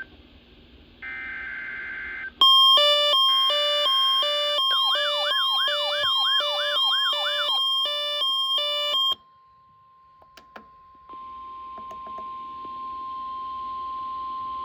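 NOAA Weather Radio alert tones. First comes a harsh, buzzing SAME header data burst about a second long. Then the steady, high 1050 Hz warning alarm tone sounds for over ten seconds. For its first seven seconds or so, a receiver's alarm beeps over it in rapid pulses with warbling chirps.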